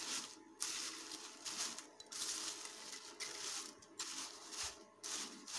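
A spoon tossing crisp fried rice-flour kurkure sticks over a paper towel in a pan, mixing them: dry rustling and scraping in repeated strokes.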